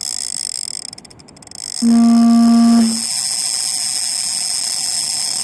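Big-game lever-drag fishing reel with its clicker engaged, buzzing in a steady high-pitched whine as a shark pulls line off the spool before the hook is set. About two seconds in, a loud, low, steady tone lasts about a second. The sound cuts off suddenly at the end.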